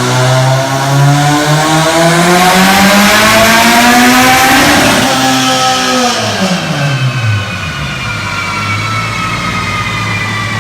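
A tuned car engine revs steadily up through a full-throttle pull for about five seconds, then the throttle closes and the revs drop quickly to a low, steady idle. After that, a fainter high whine slowly falls in pitch.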